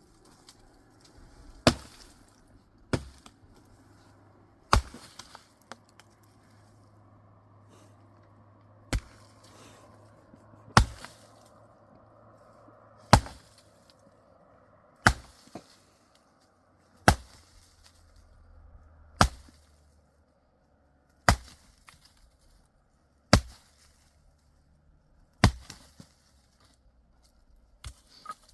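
Dry wood being chopped: single sharp strikes, about one every two seconds.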